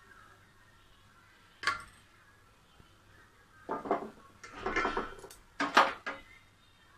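Kitchen utensils clinking and clattering as a tea strainer and vessels are handled while melted jaggery syrup is strained. There is one sharp clink a little under two seconds in, then three louder bouts of clatter in the second half.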